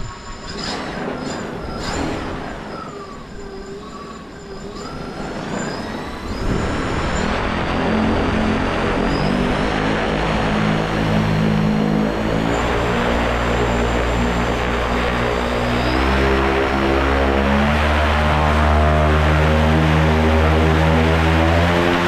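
OpenPPG SP140 electric paramotor's motor and three-blade propeller on a ground run: a faint whine gliding up and down for the first several seconds, then a loud propeller drone that steps up in pitch as the throttle is raised, climbing again about two-thirds of the way through.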